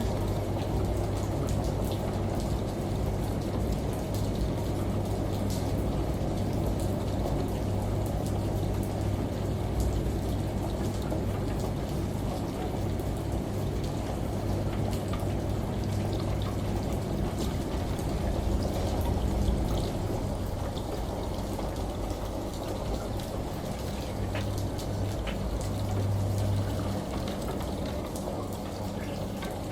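Steady rush of running water and rain, with scattered drip-like ticks, laid over the low, even hum of a washing machine.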